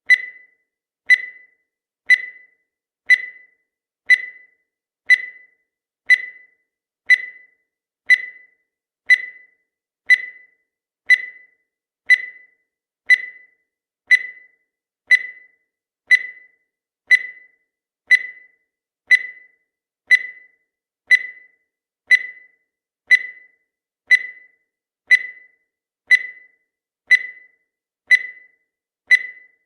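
Countdown timer sound effect: a short, high electronic tick once every second, each dying away quickly, keeping an even one-per-second beat.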